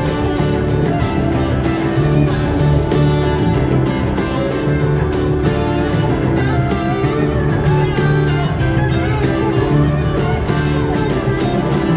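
Live jam-band concert recording: a full band playing, with guitars prominent over a steady bass line.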